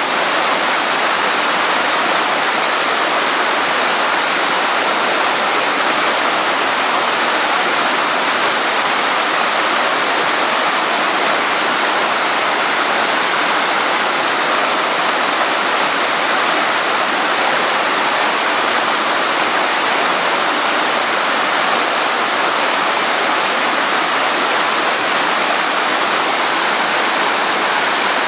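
Rushing water, a steady rush with no breaks or changes.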